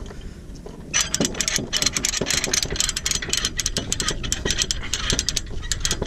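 Ratchet chain load binder being cranked to tighten a tie-down chain, its pawl clicking rapidly. The clicking starts about a second in and stops shortly before the end.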